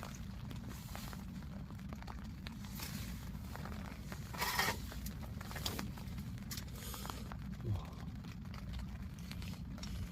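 A few short crinkling, tearing rustles of handled plastic or paper, the loudest about four and a half seconds in, with small clicks, over a steady low rumble.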